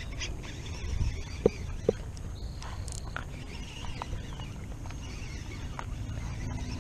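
Shimano Curado 70XG baitcasting reel being handled: two sharp clicks about a second and a half in, then a few lighter ticks from the reel's mechanism. Under them runs a steady low rumble of wind on the microphone.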